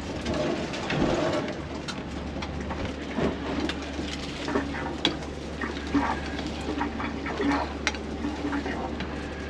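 Eggs frying in a pan with a light hiss, a spatula scraping and tapping the pan, and scattered clicks and clinks of kitchen work, over a steady low hum.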